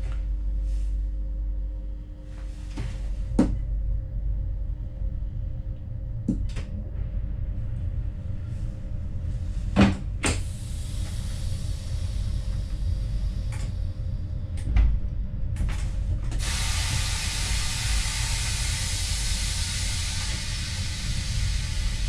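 Inside the cab of an NS VIRM electric train: a low steady rumble with a few scattered clicks and knocks, then a loud steady hiss sets in about three-quarters of the way through.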